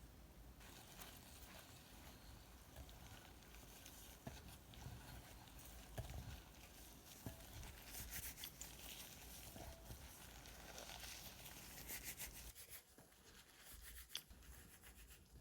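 Faint sticky rubbing and crackling of slime being worked by hand, with scattered soft clicks, one sharper near the end.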